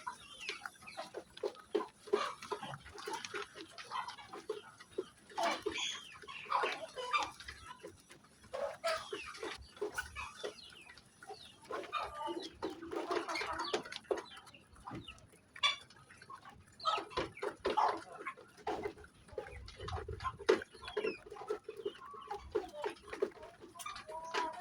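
Several Indonesian native (ayam kampung) chickens clucking and calling, with many short calls overlapping throughout.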